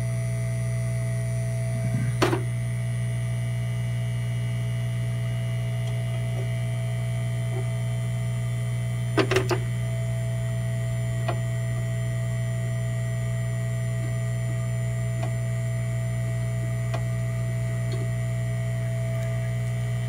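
Hot air rework station running while it warms up: a steady low hum with faint steady high tones. Two brief clatters about two and nine seconds in.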